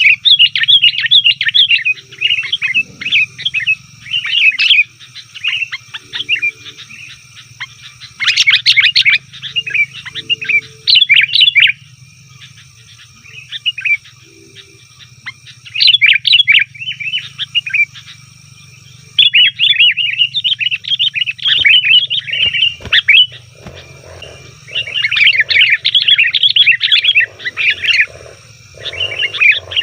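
Sooty-headed bulbuls calling noisily: bouts of quick, chattering chirps a few seconds long, broken by short pauses, over a steady low hum. In the second half, short low-pitched pulsing calls join in.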